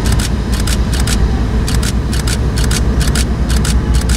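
Freight train rolling slowly: its wheels click sharply over rail joints, mostly in close pairs, over a steady low rumble of the diesel locomotives.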